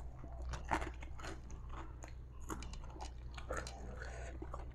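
Chewing a crispy flour-battered fried tempe gembus: irregular crisp crunches as the fried batter is bitten and chewed, over a low steady hum.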